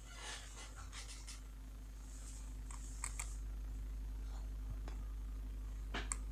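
Scattered small clicks and light rustling of handling, with a low rumble that begins a couple of seconds in as the handheld camera is moved; two sharp clicks come about three seconds in and another near the end.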